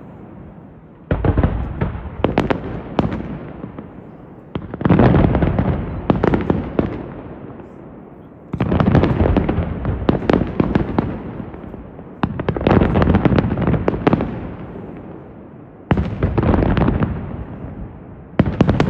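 Aerial fireworks display: six volleys of shells bursting, each a rapid cluster of loud bangs and crackles that dies away over a few seconds before the next, about every three to four seconds.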